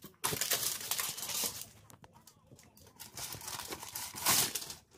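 A hand rubbing a self-adhesive vinyl floor tile down against the floor, a scratchy rubbing noise in several strokes, the loudest a little before the end, pressing the tile so that its adhesive grips.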